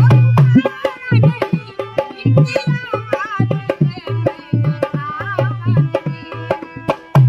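Dholak hand drum played in a fast, driving folk rhythm, deep bass strokes alternating with sharp slaps, over harmonium accompaniment.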